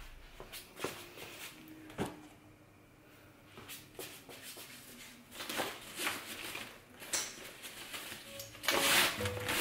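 Groceries being unpacked by hand: scattered knocks and light thuds as items are handled and set down, then a burst of shopping-bag rustling near the end. Background music comes in as the rustling starts.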